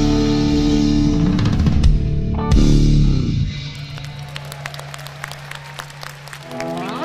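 A live rock band with electric guitar, bass and drums plays loudly and ends on a final hit about three seconds in. A low note is held under scattered clapping, and near the end an electric guitar slides up into sustained notes.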